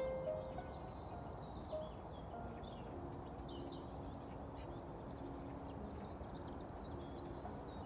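Small birds chirping and twittering over a steady rushing background noise, with a few soft held low tones.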